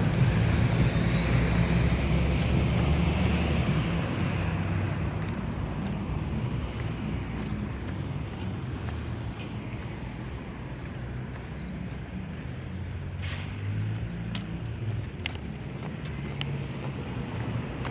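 A road vehicle's engine running close by, louder for the first few seconds and then fading into steady traffic noise, with a few faint clicks later on.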